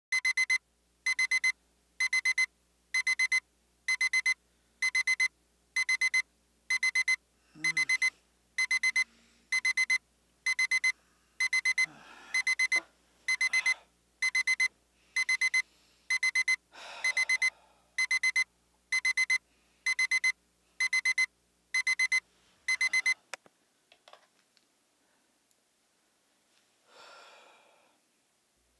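Electronic alarm beeping: a burst of rapid high beeps about once a second, repeating steadily until it cuts off abruptly about 23 seconds in. Softer rustling of bedding comes under it a few times and once more near the end.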